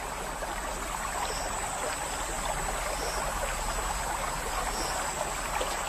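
Steady rush of river water, splashing and trickling.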